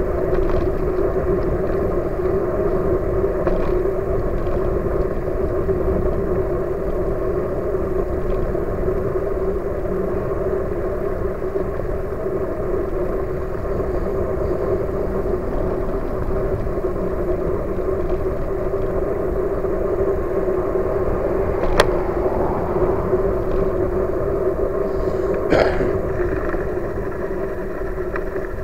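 Riding noise from a moving e-bike: a steady low rumble of wind and tyres on the paved cycle path, with a constant hum. One sharp click stands out about two-thirds of the way through.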